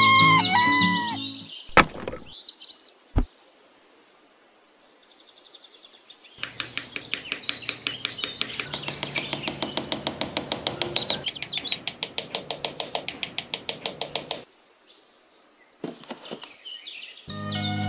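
Bird chirping at the start, then a small metal hammer tapping a wooden stick into sand in a rapid, even run of taps lasting about eight seconds. A cow's moo begins right at the end.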